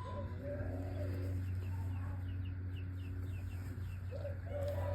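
A chicken clucking in a few low, drawn-out calls, once near the start and again near the end, over a steady low hum.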